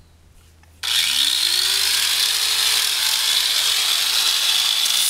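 Angle grinder switched on about a second in, its motor whine rising as it spins up and then running steadily with a loud hiss, used to trim a horse's hoof.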